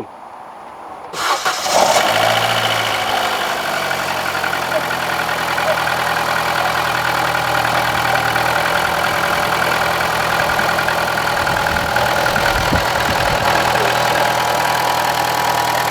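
Opel Astra J's A14NET 1.4 turbo four-cylinder engine cranked and started about a second in, flaring up briefly and then settling to a steady idle. It is the first start after the loose timing-chain guide bolts were refastened.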